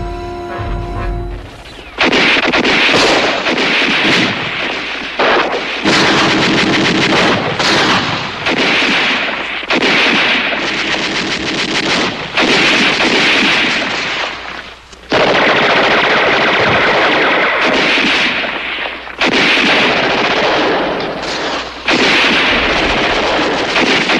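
Heavy small-arms gunfire: long runs of rapid machine-gun and rifle fire that break off and start again every two to four seconds.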